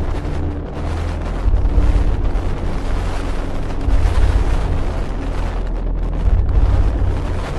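Strong gusty wind buffeting the microphone in heavy, uneven blasts, over the steady rush of a rough sea.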